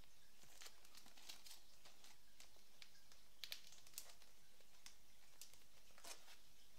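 Faint crinkling of paper and plastic packaging being handled and set down, a scatter of light clicks and crackles, the sharpest a little after the middle and once more near the end.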